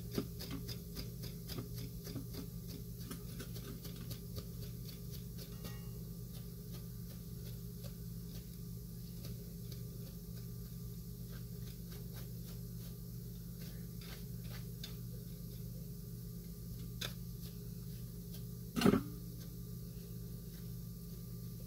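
A plastic comb pulled repeatedly through a plush teddy bear's fur: a run of faint scratchy strokes over a steady low hum, with one short loud knock about nineteen seconds in.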